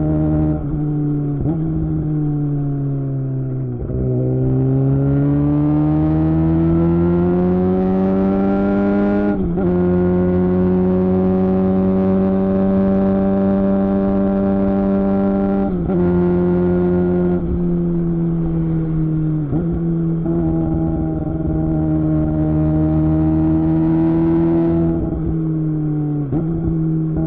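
Suzuki GSX-R600 K7's inline-four engine running through a Yoshimura R11 exhaust while riding. The revs drop over the first few seconds, then climb steadily for about five seconds, and the note then mostly holds steady. Brief breaks in the note come about nine seconds in and a few more times after.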